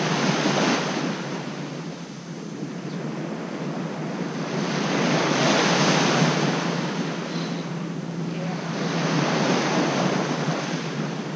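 Surf breaking and washing up a sand beach, the rush of water swelling and fading three times.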